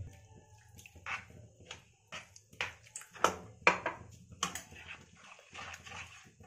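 Steel spoon stirring a thick, wet rava-and-coconut batter in a pan, scraping and knocking against the pan in irregular strokes, the loudest about three to four seconds in.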